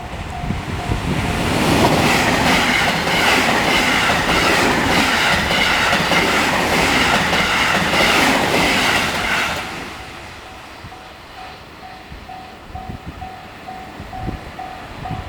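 A train passes over the track with rhythmic wheel clicks, loud for about eight seconds and then fading. A level-crossing bell rings in steady pulses at the start. The train drowns it out, and it is heard again after the train has gone.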